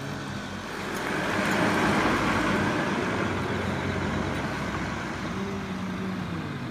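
A rush of noise that swells and fades over the first half, then, about five seconds in, a low, drawn-out yowl that rises and falls in pitch from a cat in a standoff with another cat.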